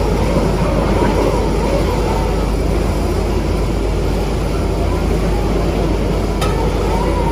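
Heavy engine of a rotary drilling rig running steadily under a low, continuous drone, with one sharp click about six and a half seconds in.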